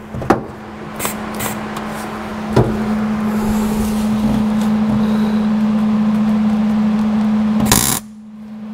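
Arc welding a steel mount plate onto a car's sheet-metal floor: the arc crackles and hisses steadily over a low hum. It starts with a few short strikes about a second in, runs continuously from a few seconds in, and cuts off suddenly near the end.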